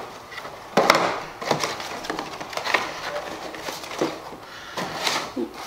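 Clear plastic clamshell packaging and paper being handled, giving irregular crackles and rustles, with a sharper crack about a second in.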